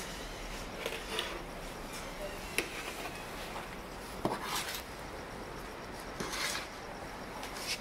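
A metal plate scraping and knocking against the inside of a large aluminium cooking pot as cooked rice is scooped out, in scattered clinks and scrapes. The sharpest knock comes about four seconds in.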